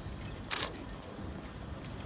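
A single sharp click about half a second in, over a steady low outdoor rumble.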